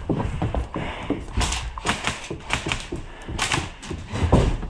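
Airsoft guns firing: several short volleys of sharp clicking shots, with a few dull thuds among them.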